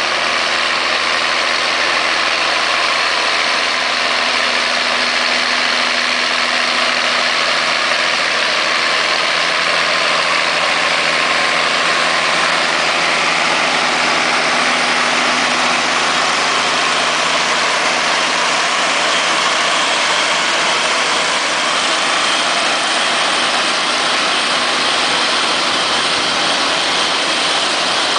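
Massey Ferguson 8480 tractor pulling a Lockwood 674H potato harvester: the tractor's engine and the harvester's chains and conveyors running steadily and loudly, with a low hum that fades out about two thirds of the way through.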